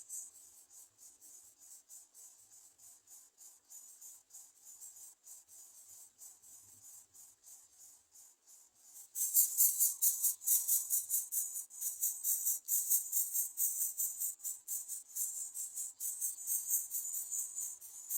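Insects trilling in a fast, high pulsing chorus, faint at first and much louder from about halfway through.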